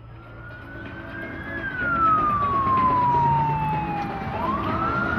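Emergency vehicle siren wailing, growing louder over the first two seconds: a slow rise in pitch, a long fall, then rising again near the end, over traffic noise.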